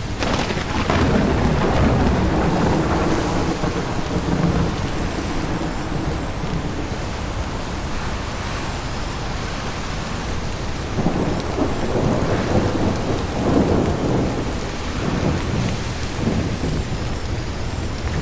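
Strong wind blowing on a mountaintop, a continuous low rushing with stronger gusts that swell shortly after the start and again past the middle.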